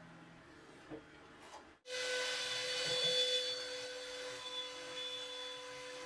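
Near silence, then about two seconds in a CNC router's trim-router spindle comes in suddenly, running with a steady high whine and cutting noise as it mills positioning holes into the OSB spoil board.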